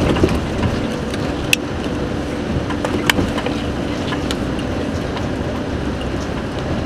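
4x4 off-road vehicle running and rolling slowly over a rough dirt track, heard from inside the cabin as a steady engine hum and road noise, with a few sharp clicks and rattles.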